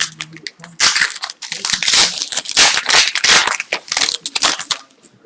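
Foil hockey card pack wrapper being torn open and crumpled by hand, a loud crinkling and crackling that comes in bursts for a few seconds.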